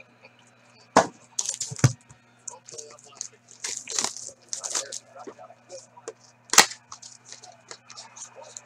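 Foil wrappers of hockey card packs crinkling and tearing as they are opened by hand: irregular sharp cracks and short rustles. The loudest snaps come about a second in, just before two seconds and about two-thirds of the way through, over a faint steady electrical hum.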